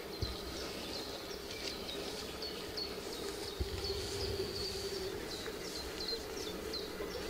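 Outdoor ambience: short high chirps repeating roughly twice a second, irregularly, over a steady low hum.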